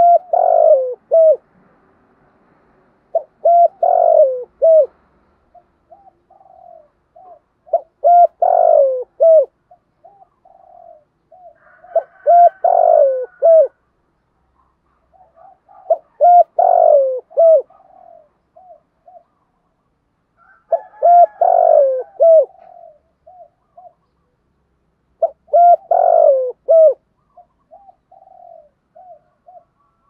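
Spotted dove cooing, repeating its song phrase about every four seconds, seven times. Each phrase is a few soft lead-in notes followed by a loud, gliding multi-note coo.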